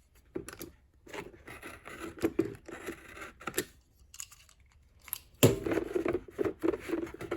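Small knife blade cutting through a tool's sealed packaging, with scattered scraping and snipping, then louder crinkling and tearing of the packaging from about five and a half seconds in.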